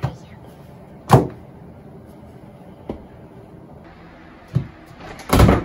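Several sharp knocks and bumps, the loudest about a second in. Near the end comes a longer clatter as an interior door with a round metal knob is opened.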